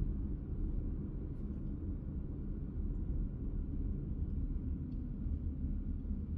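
Steady low rumble of a car driving along a city street: engine and road noise of the moving vehicle.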